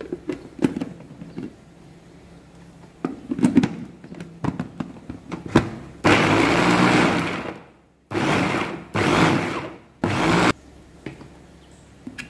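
Electric mini food chopper pulsed four times on peeled garlic cloves: one run of about a second and a half that dies away as the motor stops, then three shorter bursts. Before it, plastic clicks and knocks as the lid and motor unit are fitted onto the bowl.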